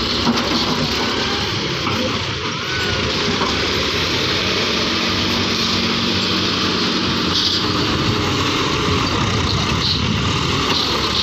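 John Deere 5310 tractor's diesel engine running steadily.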